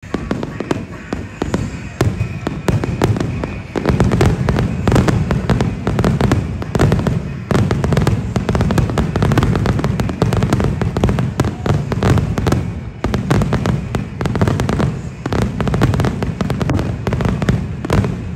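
Aerial fireworks display: a rapid, near-continuous barrage of shell bursts with a deep rumble beneath. There are brief lulls about seven and thirteen seconds in.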